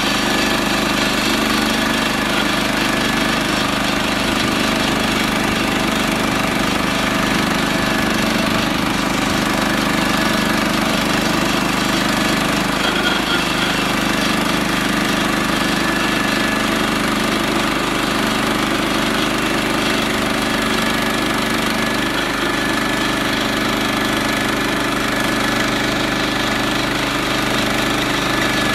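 Central Machinery portable band sawmill's small gas engine running steadily at a constant speed, with no let-up.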